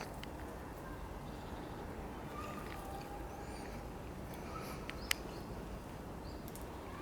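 Forest ambience: faint, scattered bird calls over a steady low noise, with one sharp click about five seconds in.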